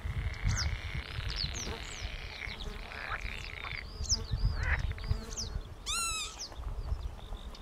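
Northern lapwings calling in flight as they circle overhead: repeated short, slurred cries overlapping one another, the alarm calls of disturbed birds. A louder, lower cry comes about six seconds in, over a low rumble.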